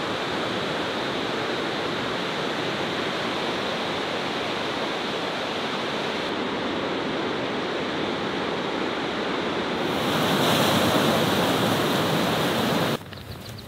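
Ocean surf breaking and washing up the shore, a steady rushing noise. It grows louder about ten seconds in, then cuts off suddenly near the end.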